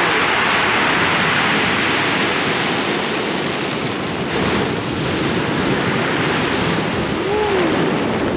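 Ocean surf washing onto the beach: a loud, steady, even rush.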